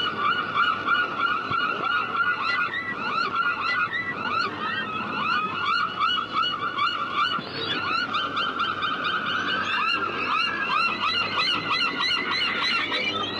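A flock of seagulls calling together: many short, repeated cries overlapping without a break.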